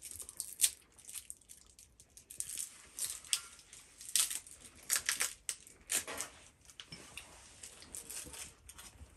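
Sweet wrappers crinkling and tearing in someone's fingers: a string of irregular sharp crackles.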